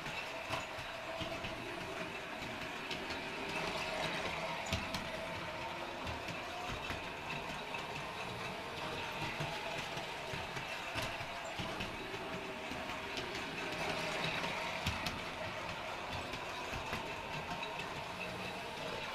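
Toy trolley's DC electric motor and gearing running steadily on a reproduction Lionel 1903 chassis as it rolls along 2 7/8-inch gauge track. It makes a steady gear whine with scattered clicks from the wheels on the rails.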